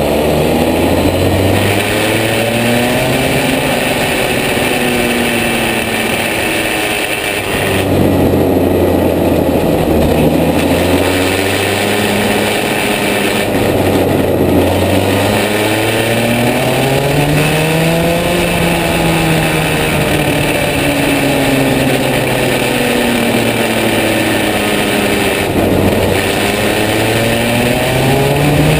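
Rotax two-stroke kart engine at racing speed. Its pitch climbs steadily on the straights and drops sharply each time the driver lifts off for a corner, several times over.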